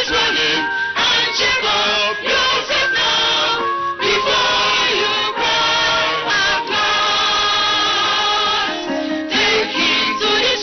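A choir singing a gospel song with instrumental backing.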